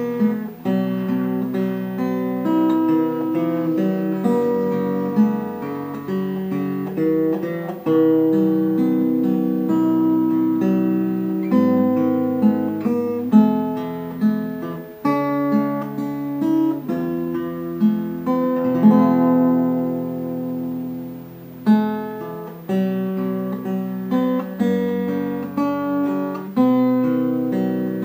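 Instrumental background music on acoustic guitar, chords strummed and plucked, changing every second or so.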